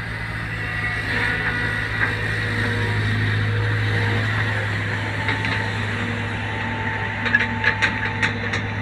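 Caterpillar 320 hydraulic excavator's diesel engine running steadily under work, with a quick series of sharp knocks about seven seconds in.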